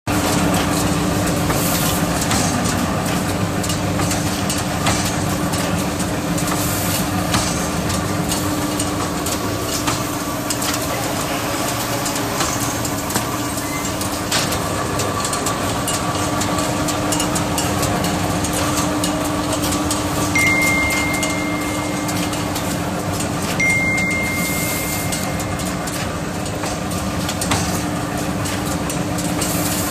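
Automatic jumbo roll paper band saw cutting machine running: a steady mechanical hum and whir with scattered light knocks. A high, steady electronic beep sounds twice in the last third, each time for a second or two.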